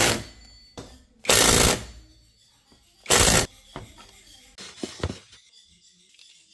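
A power driver running in three short bursts, with small clicks and knocks of hand tools and parts between them.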